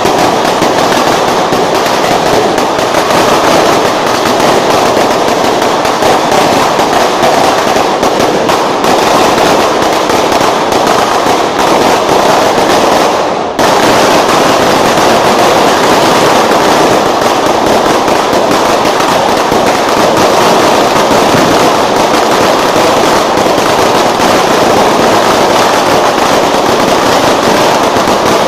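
A long string of firecrackers, a Judas belt, going off in loud, rapid, continuous crackling, with a brief break about halfway through.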